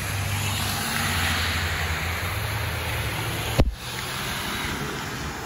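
Heavy rain hissing steadily, with a fire engine's engine rumbling low underneath as it pulls out. A single sharp thump about three and a half seconds in.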